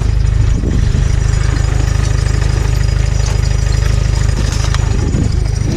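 A vehicle engine idling close by, a steady low rumble with a fast, even pulse.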